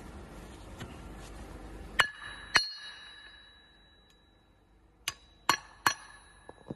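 Steel hammer striking the steel eccentric casing drill bit as it is taken apart: two sharp metallic strikes about half a second apart, each ringing on, then three quicker strikes near the end.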